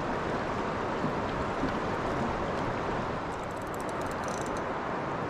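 Steady rushing noise of wind and moving river water around a small boat, with a brief run of fine, light clicks about three and a half seconds in.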